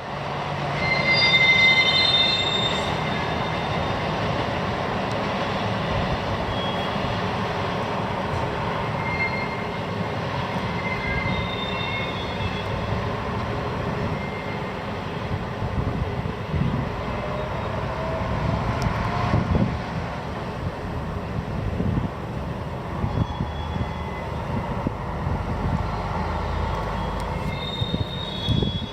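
High-pitched squealing and whistling from freight wagons being sorted at a railway marshalling yard, over a steady rumble of rolling rail cars. The squeals come and go, loudest about a second or two in, with more near the middle and near the end.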